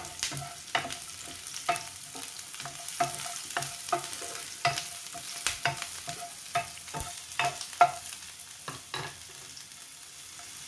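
Diced onion and garlic sizzling in hot oil in a nonstick frying pan, while a spatula stirs them, scraping and tapping the pan in short irregular strokes.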